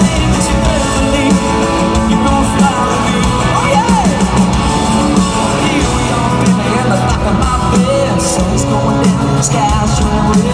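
Country-rock song with a male singer and guitars.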